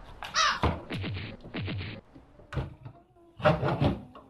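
A kitchen knife chopping through raw chicken onto a plastic cutting board: a sharp knock about two and a half seconds in, then a louder cluster of thuds just after three seconds. A bird caws once near the start.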